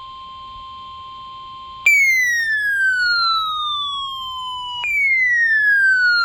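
NOAA Weather Radio warning alarm test: a steady single-pitch tone of about 1050 Hz for about two seconds. Then a louder siren-like alert tone takes over, falling in pitch over about three seconds and starting again high.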